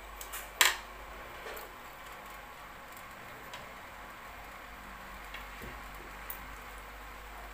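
Close-up mouth sounds of someone quietly chewing soft rice cake, with one sharp click about half a second in and a few fainter ticks later.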